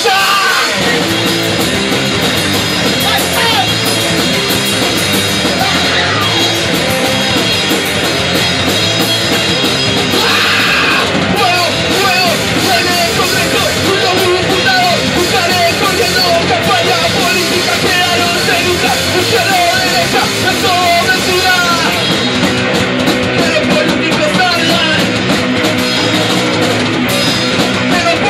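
A punk rock band playing live: electric guitar under a steady beat, with shouted vocals.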